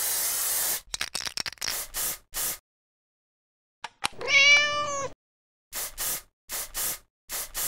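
A cat meows once, a single drawn-out call about four seconds in, with short bursts of noise before and after it.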